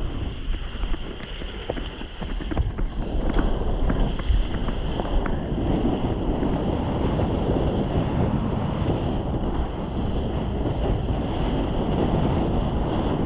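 Wind buffeting the microphone over rushing water and waves, with a scatter of small ticks in the first few seconds.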